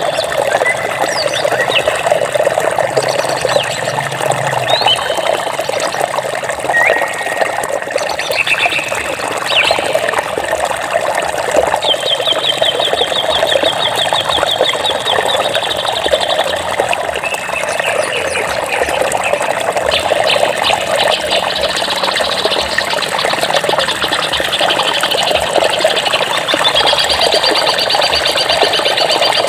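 Running water making a steady rush, with small birds chirping over it: short high chirps in the first seconds, then rapid high trills about twelve seconds in and again over the last part.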